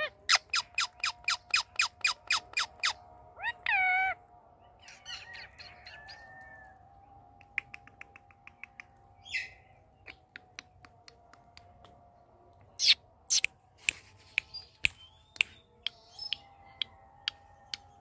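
Indian ringneck parrot calling: a fast run of sharp chirps, about five a second, for the first three seconds, ending in a longer wavering call. Then quieter, scattered clicks and chirps, with a few louder sharp calls past the middle.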